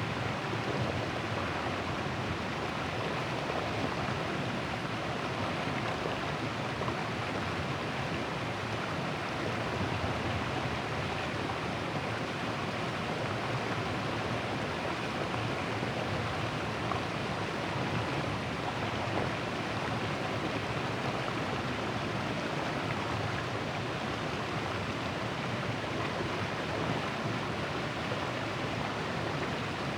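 River water rushing steadily around a large boulder, an even, unbroken rushing noise.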